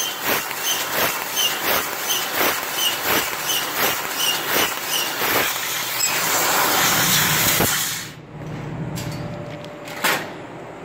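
Fiber laser cutter cutting sheet steel with an oxygen assist-gas jet: the cutting hiss pulses about three times a second, then runs as one steady hiss for about two seconds. It stops about eight seconds in, leaving a low machine hum and a couple of clicks.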